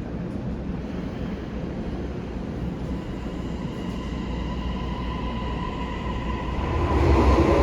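Toei 6500 series electric train with Mitsubishi hybrid SiC VVVF inverter and three-phase induction motors: a steady low hum with a faint high tone, then near the end it grows louder as a rising motor whine begins with the train pulling away.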